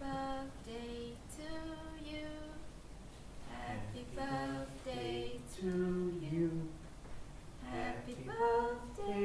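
A woman's voice singing a slow melody in long held notes, with no accompaniment heard.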